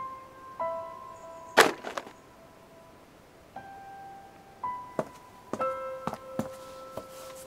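Sparse, slow piano notes of background music, each one held and ringing. About a second and a half in comes a loud, sharp thunk, the loudest sound here, and a few lighter knocks follow in the second half.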